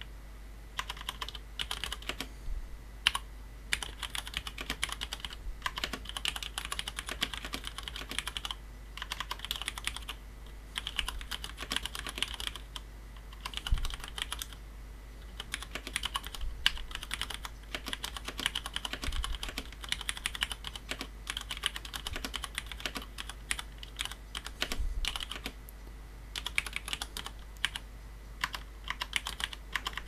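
Touch-typing at about 60 words a minute on a Cherry G80-3000S tenkeyless mechanical keyboard with tactile, non-clicky Cherry MX Brown switches, PCB-mounted with no plate. A dense, even run of key strokes, with short pauses every few seconds.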